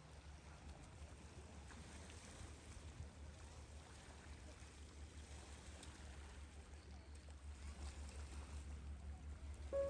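Low, steady rumbling noise under a faint hiss, slowly growing louder; it carries the sound of water or surf.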